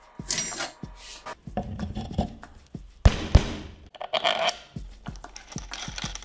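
Hand assembly of a homemade dry cell: scattered clicks, scrapes and knocks of acrylic, rubber and stainless steel plates and threaded rods being handled and fitted together, with two sharp knocks about three seconds in and a brief metallic scrape just after four seconds.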